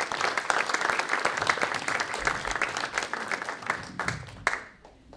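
Audience applauding, a dense clatter of many hands clapping that dies away quickly about four and a half seconds in.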